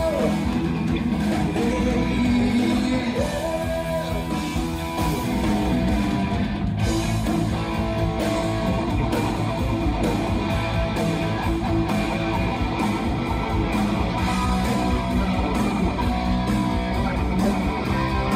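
Live rock band playing: electric guitars over bass guitar and a drum kit, heard from the audience seats of a theatre.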